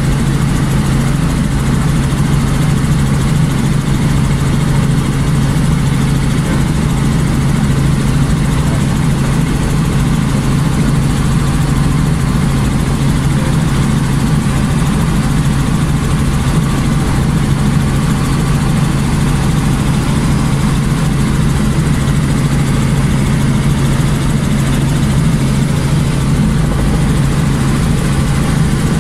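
Helicopter in flight heard from inside the cabin: a loud, steady drone of engine and rotors with a strong low hum, unchanging throughout.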